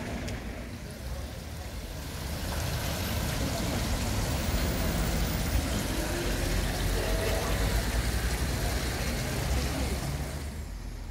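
Steady street noise: a low rumble of traffic, growing louder about two seconds in and easing near the end, with faint voices in the background.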